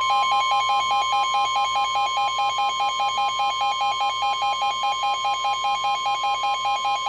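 Emergency Alert System attention tone announcing a tornado warning: a steady high tone with a lower tone beeping rapidly over it, about four to five beeps a second.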